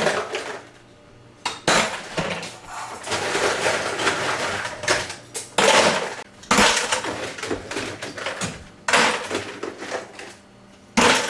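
Irregular bursts of hard clattering and cracking from the ice built up under a Maytag bottom freezer drawer as it is knocked and broken loose.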